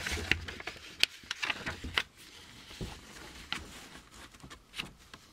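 Paper instruction sheet being turned over and smoothed flat: rustling and crinkling with a string of sharp crackles.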